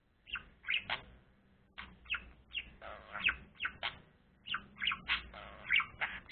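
Budgerigar chirping: a quick, irregular series of short, sharp chirps, about two or three a second.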